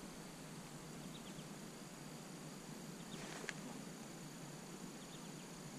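Faint outdoor ambience on still water: a steady soft hiss with a thin high hum, and a few faint short high chirps, one a little louder about three and a half seconds in.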